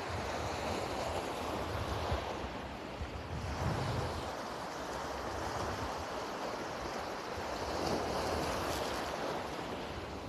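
Shallow surf washing in over rocks and sand around bare feet, swelling twice, with wind rumbling on the microphone.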